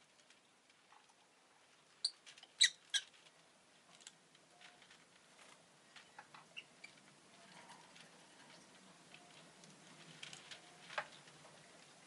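Rosy-faced lovebird giving three short, sharp chirps in quick succession about two to three seconds in, followed by scattered faint clicks and ticks, with a louder click near the end.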